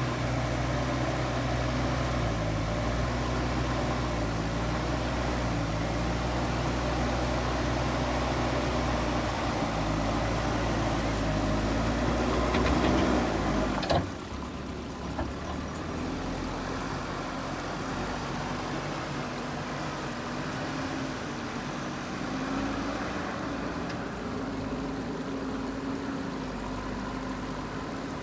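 Diesel engine of a JCB earthmoving machine running steadily, swelling slightly before an abrupt drop about halfway through, after which a quieter, higher engine sound carries on.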